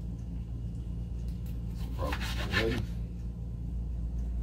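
Kitchen knife slicing a tomato on a wooden cutting board: soft cutting and rubbing strokes over a steady low hum. A brief louder sound with a rising pitch comes about two seconds in.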